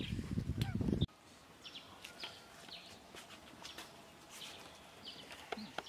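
A low, rough muttering voice that cuts off abruptly about a second in, then a quiet outdoor background with faint, scattered bird chirps.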